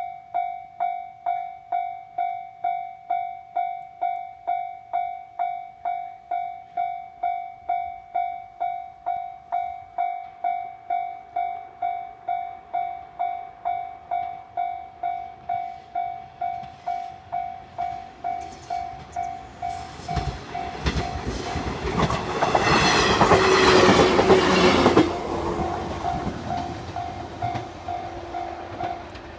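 Japanese level-crossing warning bell ringing about twice a second. A JR West 105 series electric train runs over the crossing from about 20 seconds in, its wheels clattering over the rail joints and drowning out the bell, loudest around the 23 to 25 second mark. The bell is heard again briefly and stops near the end.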